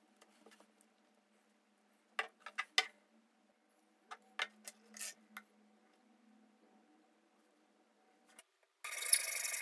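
Glass bottles clinking and knocking as they are handled and set down on a wooden tabletop, in two short clusters about two and about four to five seconds in. Near the end a hacksaw starts cutting a thin wooden strip, with loud, rapid strokes.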